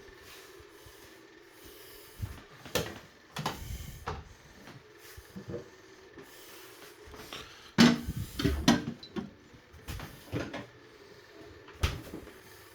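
Irregular household knocks, bumps and clatters, like things being moved and cupboard or furniture parts being handled, with a busy cluster of loud knocks about eight seconds in and single knocks around three, ten and twelve seconds in.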